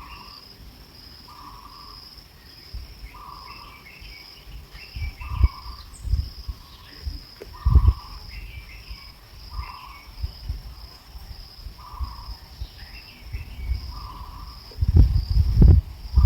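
Outdoor ambience of insects chirping steadily in a pulsing high trill, with a lower call repeating about once a second and scattered bird chirps. Low thumps and knocks near the microphone are the loudest sounds, with a cluster near the end.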